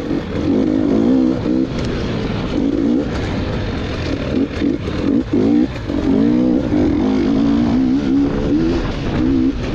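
Dirt bike engine revving up and down over and over as the throttle is opened and closed, with a few knocks through it.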